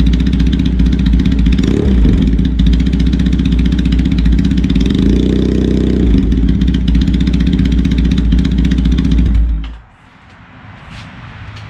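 Triumph T100 Bonneville's parallel-twin engine idling, with two brief throttle blips, then shut off about ten seconds in.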